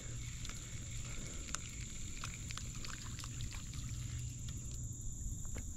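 Steady high-pitched drone of crickets or other insects over a faint low hum, with scattered light ticks and small water splashes as a small sunfish is reeled in to the boat on a spinning reel.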